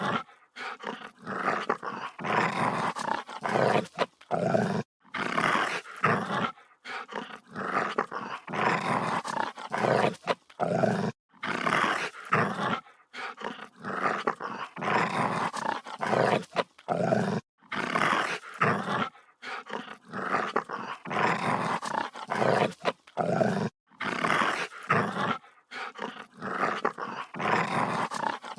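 Dog growling aggressively and snarling in repeated rough growls, each about a second long, with short gaps between.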